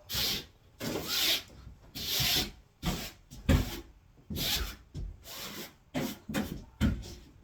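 Repeated scraping strokes, about one a second, with a couple of sharper knocks among them.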